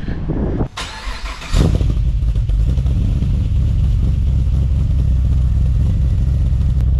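A vehicle engine catches after a short noisy start, about a second and a half in, then runs at a steady, loud low idle.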